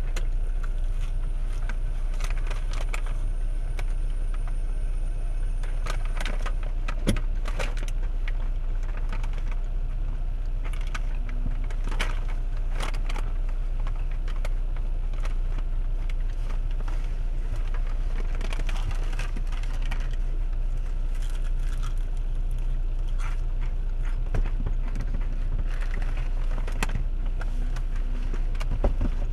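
Steady low rumble inside a parked car's cabin, with scattered crinkles and clicks of fried-chicken packaging being handled as a man eats.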